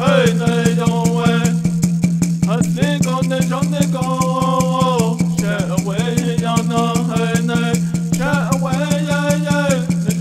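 A peyote song: a voice singing in short repeated phrases over the fast, even beat of a water drum and a gourd rattle shaken with it.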